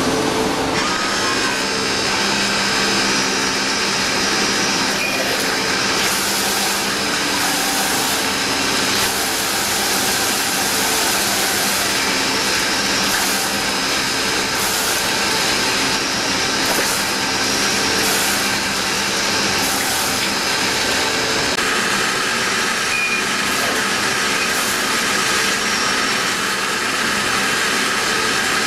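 CNC lathe machining a ball-shaped metal part with a live rotary tool under flowing coolant: a steady machine whir and coolant hiss with a high whine whose pitch changes about two-thirds of the way through.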